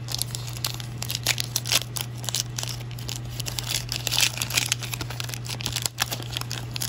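A baseball card pack wrapper being torn open and crinkled by hand: a dense run of short crackles, loudest about four seconds in, over a steady low hum.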